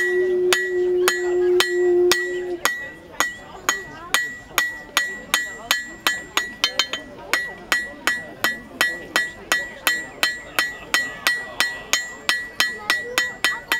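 Hand hammer striking hot steel on an anvil in a steady run of about three to four blows a second, each blow with a short metallic ring. The knife blade is being forged out to a point and a sharp edge.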